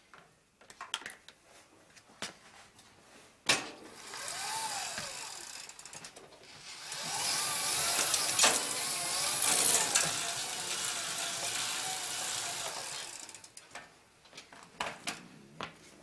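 An electric motor in a pedal-powered generator and wood-chipper rig spins up and runs for about seven seconds with a whine that wavers in pitch, then winds down. Small clicks from handling wire connectors come before and after it.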